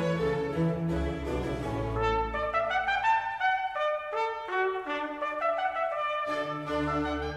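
Instrumental background music: a melody of held notes stepping from pitch to pitch, with a low bass part at the start and again near the end.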